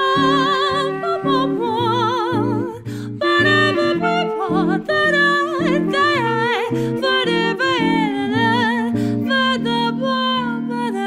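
Live 1920s-style jazz trio: a woman singing with wide vibrato, a clarinet and a jazz guitar keeping steady rhythm chords.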